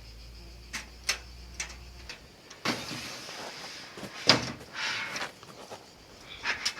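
Scattered clicks and knocks with a few short scrapes from hand work on the panel mounting, the loudest a sharp knock about four seconds in; a low hum stops about two seconds in.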